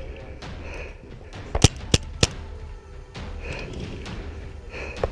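A paintball marker firing three quick shots, about a third of a second apart, a bit under two seconds in.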